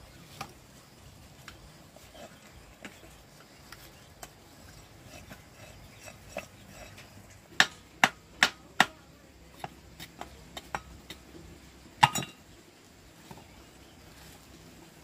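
Hard objects clinking and knocking: scattered light clicks, a quick run of four sharp knocks about halfway through, and one louder knock a few seconds later.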